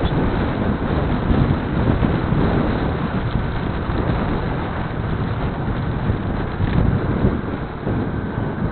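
Wind rushing over the microphone of a camera on a moving vehicle, over a steady low rumble of road and engine noise.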